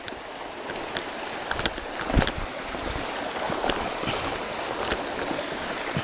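Shallow stream water rushing steadily over flat rock slabs, with a brief thump about two seconds in.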